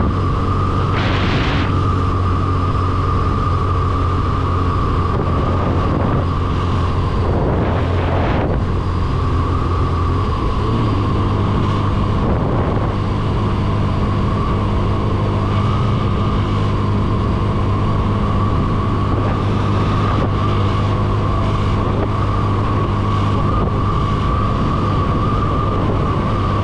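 Motorcycle engine running steadily at cruising speed with wind noise over the microphone and a steady whine on top; the engine note shifts slightly about ten seconds in. Two brief rushes of noise, about a second in and around eight seconds.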